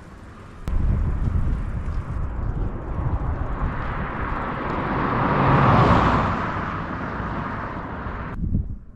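Wind rushing over a GoPro's microphone with road rumble while riding a bicycle. It starts suddenly, swells about two-thirds of the way through, and cuts off abruptly near the end.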